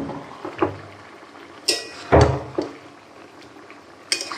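Metal cookware knocking and clinking: a handful of separate sharp knocks, two of them ringing clinks, and one heavier thump about two seconds in.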